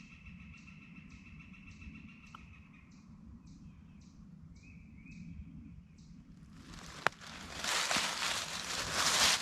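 Faint outdoor background with a soft high chirp repeating about twice a second. About two-thirds in, loud rustling and crunching in dry leaves sets in, with one sharp click.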